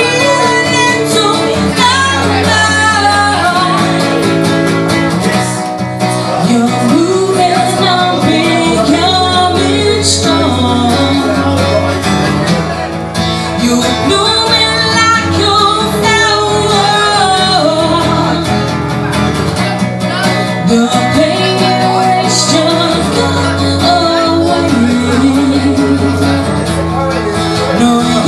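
Live acoustic duo: a strummed acoustic guitar under a man and a woman singing together.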